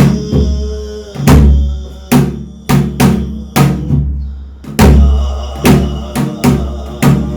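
Korean shamanic ritual (gut) percussion: deep drum strokes in a fast, uneven rhythm, several a second, with ringing metallic overtones. There is a short break about four seconds in.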